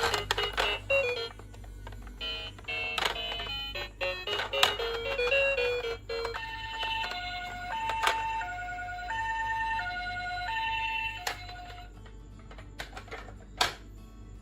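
Toy ambulance's electronic sound chip playing a Japanese-style two-tone 'pee-po' ambulance siren, a high and a low tone alternating about every half-second for some five seconds in the middle. Before it come tinny electronic beeping notes and plastic clicks, and near the end more clicks and rattles of the toy.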